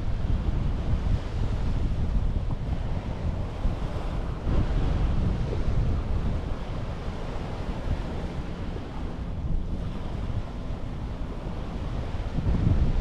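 Gentle sea waves washing onto a beach shore, swelling and easing a few times, with wind rumbling on the microphone.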